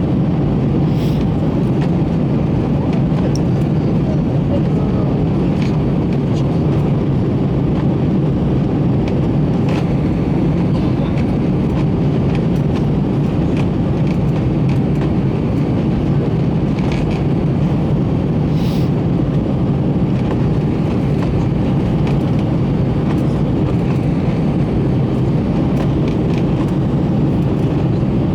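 Steady cabin noise inside an Airbus A321 airliner: a constant rush of engine and airflow noise that stays the same throughout, with a few faint ticks.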